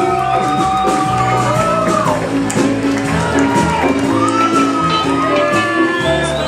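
Live band playing in a large room, with the crowd shouting and whooping over the music.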